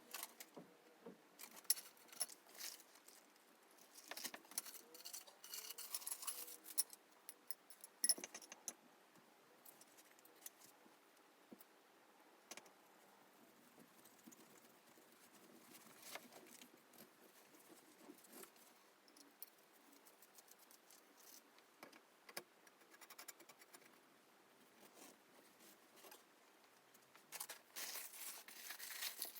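Scattered faint clicks, clinks and rattles of floor-lamp parts being handled and fitted together during assembly, with a busier stretch of rattling near the end.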